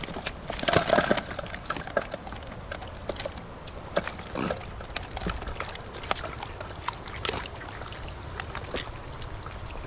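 Water sloshing with many scattered sharp clicks and crackles, densest and loudest about a second in.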